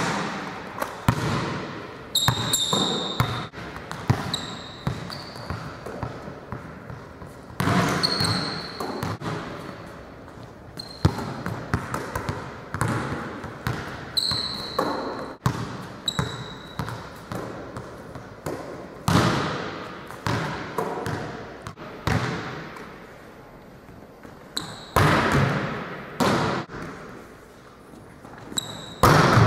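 A volleyball being struck and bouncing on a hardwood gym floor again and again, each hit echoing in the large hall, with short high sneaker squeaks on the court between hits.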